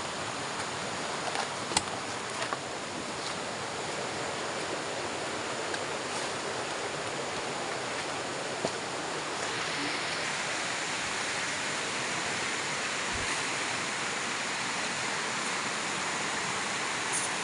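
A shallow river rushing over rocks and rapids: a steady, even rush of water that grows brighter and more hissing about halfway through.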